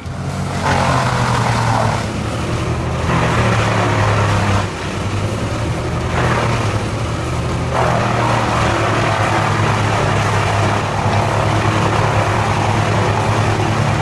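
Morbark M20R whole-tree chipper's 415-horsepower Caterpillar diesel engine running steadily under load, with a coarse rushing noise of wood being chipped that surges and drops back several times.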